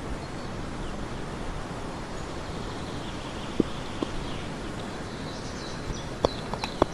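Steady outdoor background hiss with two soft knocks midway. Near the end comes a quick run of clicks and scrapes as a metal knife blade digs into packed soil and roots.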